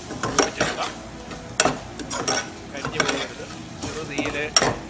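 A steel ladle stirring and scraping around a metal pot as sliced onion, green chillies, garlic and ginger fry in oil with chilli powder and turmeric, with a light sizzle. There are irregular clinks of the ladle against the pot, the sharpest about a second and a half in and near the end.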